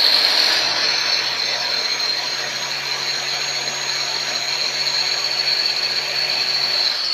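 Handheld electric marble saw (masonry cutter) motor running steadily at full speed, a loud, high-pitched whine.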